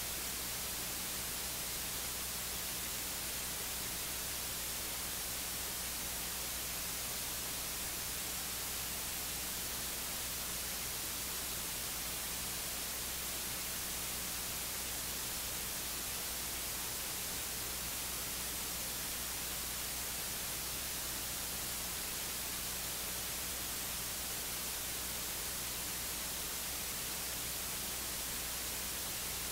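Steady electronic hiss with a low hum underneath, unchanging throughout and with no voice in it: the recording's noise floor, with no speech reaching the feed.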